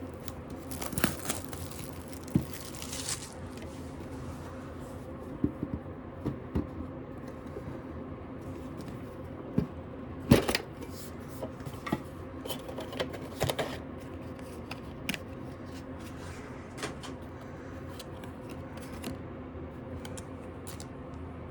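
Handling of Pokémon booster packs and their packaging: scattered clicks, taps and rustles as packs are pulled out and set down, with one louder knock about ten seconds in. A steady low hum runs underneath.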